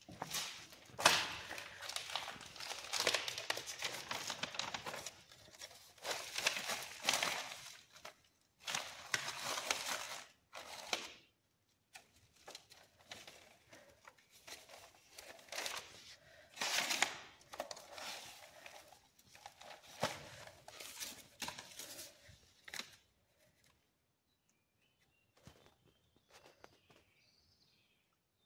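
Old, dusty paper rustling and crinkling in irregular bursts as the pages of a notebook are turned and loose documents are picked up and handled. The rustling stops about three-quarters of the way through.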